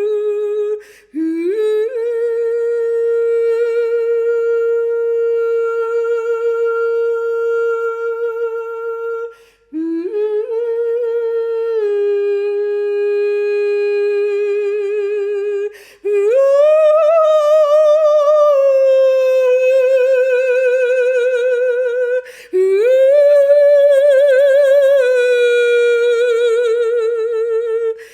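A single unaccompanied voice singing wordless, long held notes as sound-healing vocal toning. It sings about four long phrases, each sliding up from below into a sustained note. The later notes are higher and carry a wavering vibrato, with brief breath breaks between phrases.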